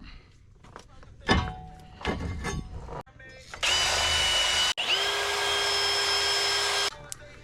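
Power tool running at speed with a steady whine, in two runs: about a second, a brief stop, then about two seconds more. Before it, a few knocks and clinks of tools being handled.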